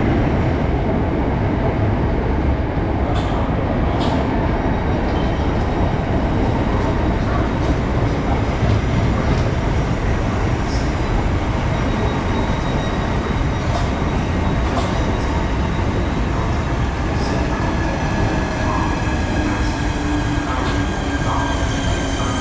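Southeastern electric multiple unit running past the platform: a loud, steady rumble of wheels on rail. There are a couple of sharp clicks a few seconds in, and faint whining tones come up in the second half.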